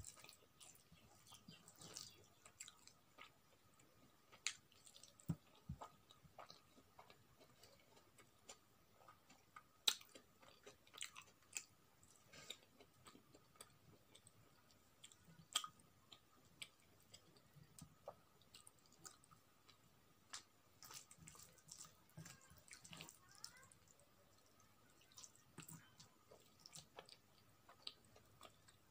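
Quiet eating by hand: chewing, and fingers mixing rice and curry on a plate. It is heard as scattered soft clicks throughout, with a couple of sharper ones.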